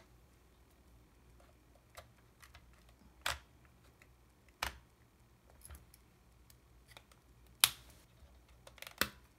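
Scattered sharp clicks and taps of a Yashica T4 compact camera's plastic body being handled and small screws being set down on a desk, about seven in all, the loudest about three-quarters of the way through.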